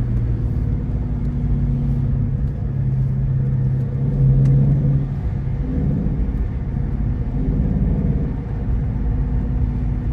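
Dodge Charger R/T's 5.7-litre HEMI V8, fitted with a JLT cold air intake, droning under way, heard from inside the cabin over low road rumble. The drone climbs a little in pitch and loudness until about five seconds in, then eases off.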